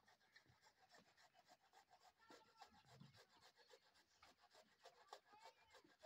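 Near silence: faint rustling and scattered light ticks.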